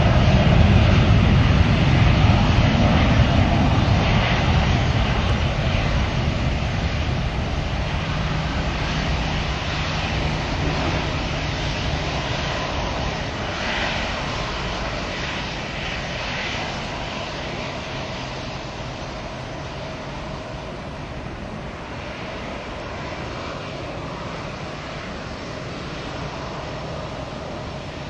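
Boeing 737-500's twin CFM56-3 turbofan engines at takeoff thrust: a loud rumble that fades steadily as the airliner rolls away down the runway and climbs out.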